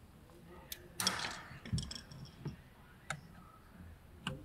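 A handful of sharp, irregular clicks and light knocks, with a short rasp about a second in: hand work on the plastic interior door trim cover as it is taken off.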